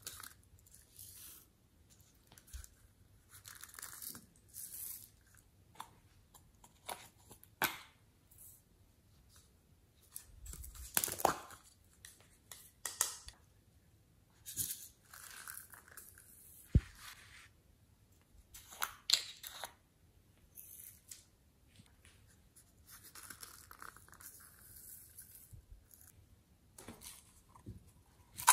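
Hands handling small plastic cups and containers: irregular short rustles, scrapes and clicks as they are picked up, turned and set down. There is a louder scrape about a third of the way in and a sharp click a little past halfway.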